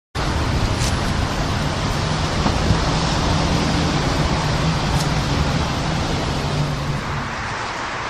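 Steady road traffic noise, with the low hum of a passing vehicle's engine that eases away near the end.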